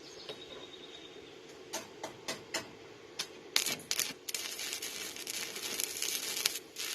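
Stick (arc) welding with a small inverter welder, turned down to fill a burned-through hole: a few sharp ticks as the rod is struck, then from about halfway in the arc's steady crackling sizzle.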